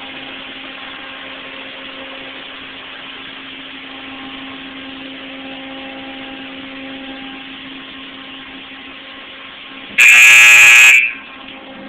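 Automatic car wash machinery running: a steady hum over an even rushing noise. About ten seconds in, a loud, steady buzzing tone sounds for about a second.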